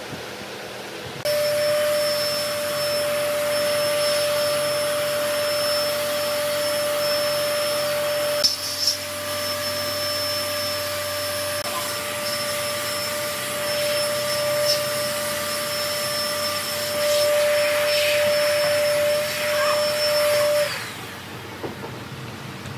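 An electric motor running steadily with a high whine, starting about a second in and cutting off near the end, with a few short knocks and clicks over it.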